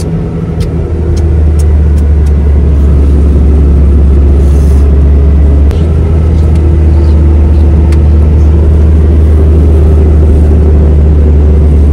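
Car driving on a narrow road, heard from inside the cabin: a loud, steady low rumble of engine and tyre noise, with a few light clicks in the first couple of seconds.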